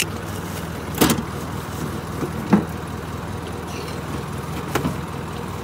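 Jeep engine running steadily, with four sharp knocks and clunks spread through it.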